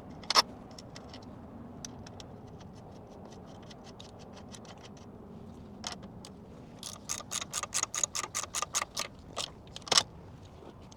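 Hand socket ratchet clicking as the nut on the alternator's positive cable terminal is run down. A faint steady run of clicks is followed by a louder, faster run of several clicks a second about seven seconds in, with a sharper single click near the start and another near the end.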